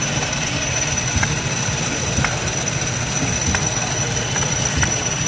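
Small scale-model vertical engine running steadily with a fast, even low chugging, sharp clicks about once a second, and a thin high whine.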